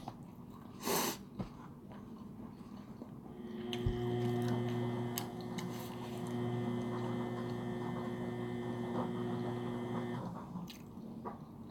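A steady, pitched machine-like hum with a faint high whine that starts about three and a half seconds in and cuts off abruptly about six seconds later, over quiet mouth and eating noises.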